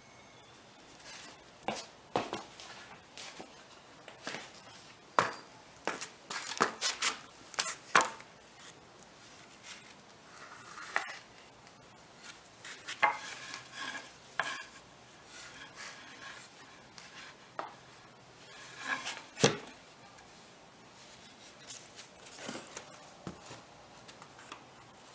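Irregular knocks and taps of pine furring strips being handled and set in place on cardboard while a wooden frame is assembled. The sharpest knock comes about two-thirds of the way through.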